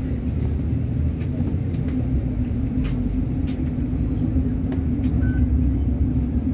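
City bus driving, heard from inside the cabin: a steady low engine hum and road rumble with a few light rattles.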